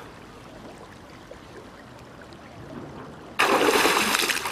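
Faint lapping of river water, then, about three and a half seconds in, a sudden loud splash that keeps on as a swimmer bursts up out of the water and flings their head back.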